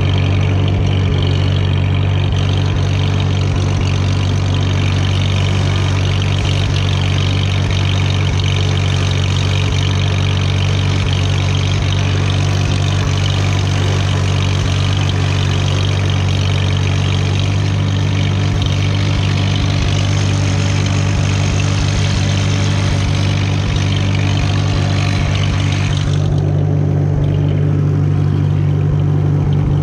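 1942 Farmall H's four-cylinder gasoline engine running steadily as the tractor drives. A higher hissing noise over the engine stops suddenly about four seconds before the end.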